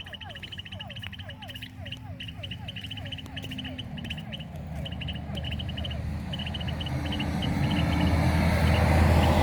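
Animals calling: a short falling call repeated about three times a second for the first few seconds, over steady high chirping. From about halfway a low rumble builds and grows louder toward the end.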